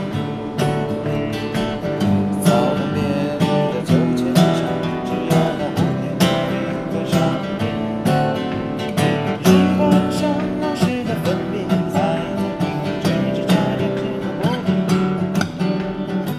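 Acoustic guitars strumming chords in a steady rhythm.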